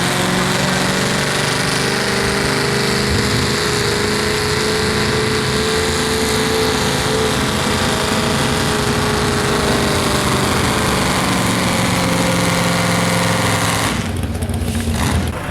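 Pulling truck's engine running hard at steady high revs, its pitch drifting slightly, then dropping off abruptly about fourteen seconds in.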